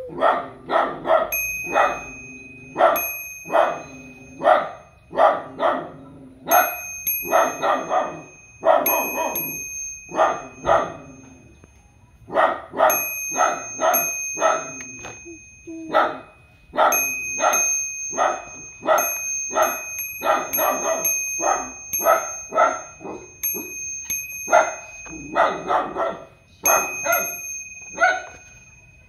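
A dog barking over and over, about two barks a second, in bouts separated by short pauses: a guard dog barking at an intruder.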